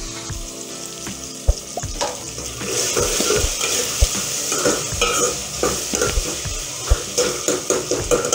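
Chopped onions sizzling as they fry in an aluminium pot, stirred with a metal ladle that knocks against the pot now and then. The sizzle grows louder about two seconds in.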